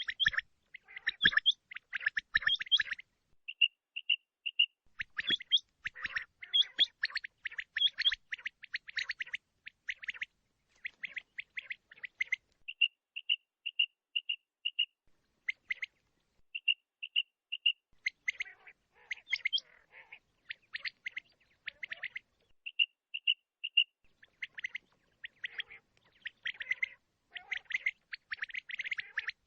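Male quail calling: runs of three to five short, clear whistled notes, alternating with bursts of rapid, harsher chirping.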